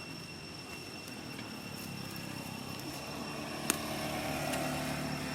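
A low engine hum that grows louder through the second half, with a steady high-pitched whine throughout and one sharp click a little after the middle.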